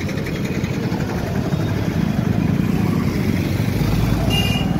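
Motorcycle engine running as it rides through city street traffic, a steady rumble that grows slightly louder. A short horn beep sounds near the end.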